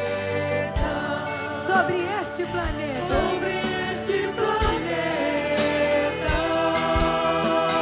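Small mixed choir singing a Christian devotional song, led by women's voices with vibrato, over sustained instrumental accompaniment and soft, low drum beats.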